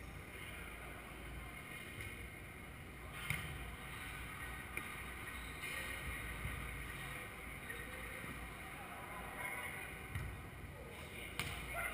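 Steady low rumble of a large indoor hall, broken by a few sharp slaps of a volleyball being hit during play, the loudest about three seconds in.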